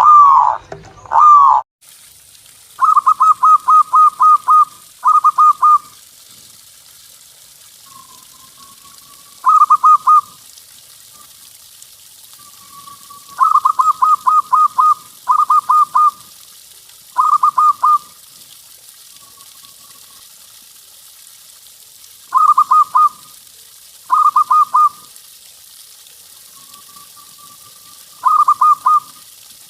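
Zebra dove (perkutut) cooing its song: repeated bursts of rapid, staccato notes, each a quick run of five or so, with pauses and a few soft drawn-out coos between them. The first second and a half holds a louder, different-sounding call that cuts off abruptly.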